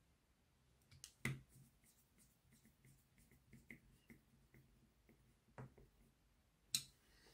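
Faint, sparse clicks and light ticks of a model locomotive chassis being put back together by hand: a part pressed into place and a small screw turned in with a small screwdriver. Two clicks come just after a second in, then a run of faint ticks, and a sharp click near the end.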